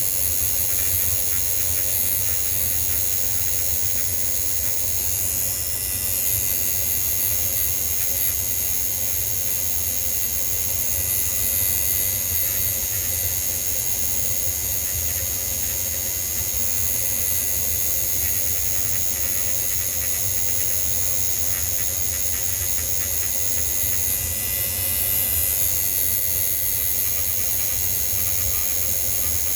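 A small motor running steadily, with a high hiss, a steady high whine and a low rumble under it; the whine shifts in pitch briefly about six seconds in and again near the end.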